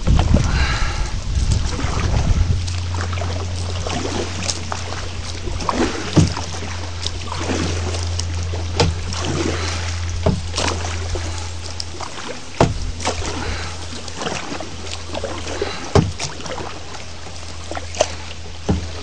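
Plastic kayak pushing through dense reeds: stalks brushing and scraping along the hull, with irregular knocks and splashes from the paddle. A steady low hum runs underneath, fading about two-thirds of the way through.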